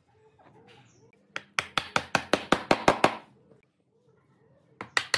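A quick run of sharp knocks, about seven a second, lasting nearly two seconds, with a second run starting near the end.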